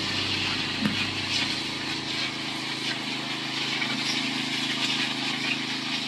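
Power sprayer spraying pesticide onto a persimmon tree through a hand-held spray gun: a steady hiss of spray with the sprayer's engine running underneath.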